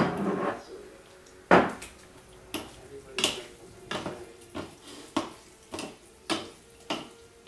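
Wooden spoon and wooden fork tossing food in a ceramic bowl, knocking against the bowl and each other about every half second, with a sharp knock at the start and a louder one about a second and a half in.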